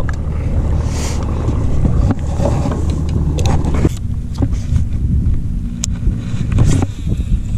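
A boat motor running with a steady low hum, with a few sharp clicks near the end.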